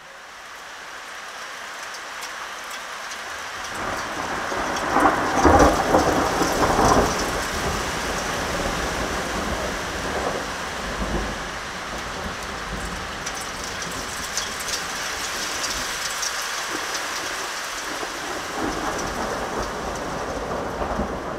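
Thunderstorm: steady rain swells in over the first few seconds, a loud clap of thunder rumbles about five to seven seconds in, and lower rolls of thunder come and go under the rain that follows.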